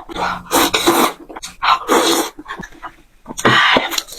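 A woman coughing in three short bursts while eating.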